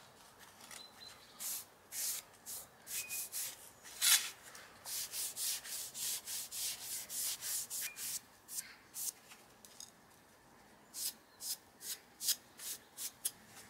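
Dark wood stain being rubbed by hand onto thin pine trim strips: a long run of short hissing strokes, about two a second, with a pause of a second or so about two-thirds in before a few more strokes.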